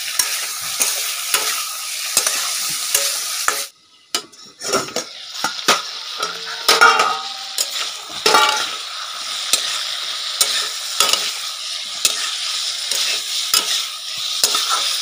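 Aloo gobi (potato and cauliflower) frying over a high gas flame in a steel kadhai, sizzling steadily while a spatula scrapes and knocks against the pan. The sound drops out for under a second about four seconds in.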